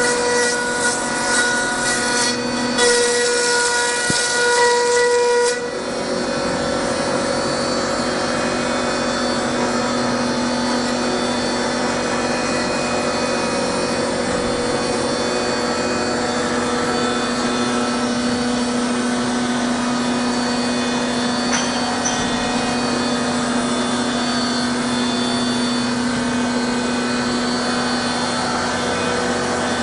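CNC milling machine running with a steady machine hum made of several steady tones. For the first five seconds or so a louder hiss with higher tones rides on top, then cuts off suddenly and the steady running continues.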